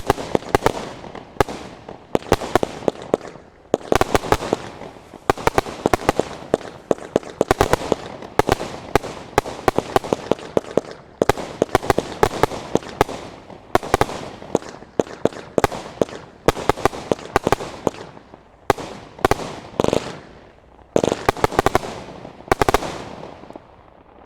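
Standard Fireworks 'Witchcraft' 100-shot barrage firing, with sharp bangs several a second in quick clusters. The bangs stop about a second before the end and the echo dies away.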